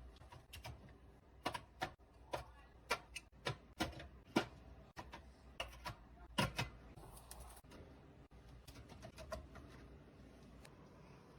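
Irregular sharp clicks and knocks of hard containers being set down and arranged on fridge shelves, about a dozen over the first seven seconds, then only a few faint ones.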